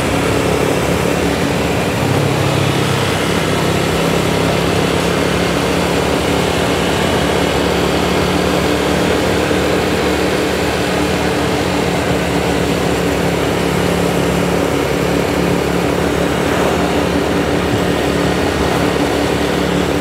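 Large bus's diesel engine running steadily close by, a constant low drone with a slight shift in pitch about two-thirds of the way through.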